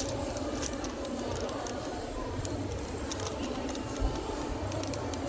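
Busy shop ambience: a murmur of voices with scattered small clicks and clinks, and one sharp knock about four seconds in.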